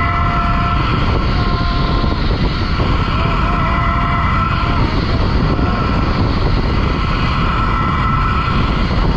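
Heavy wind rushing over the camera microphone on a fast zipline ride, with a steady whine from the trolley's pulley wheels running along the steel cable.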